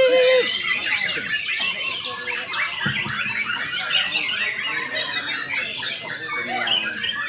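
Many caged white-rumped shamas singing at once in competition, a dense overlapping chorus of rapid whistles, trills and chattering calls that never pauses.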